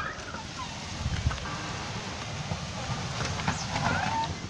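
Heavy rain pouring down with hail, a steady even hiss.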